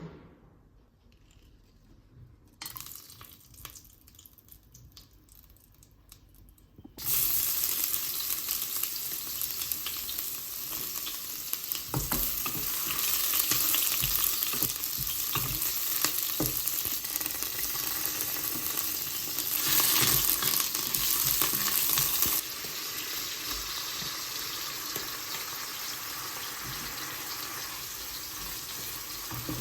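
Food frying in a hot pan: a steady sizzle with crackles that starts suddenly about seven seconds in. It grows louder for a few seconds about two-thirds of the way through, then settles again.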